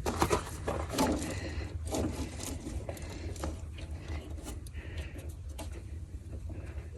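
Irregular clicks and knocks of hand tools and metal parts being handled while a heater hose is fitted on the skid steer's engine, over a steady low hum.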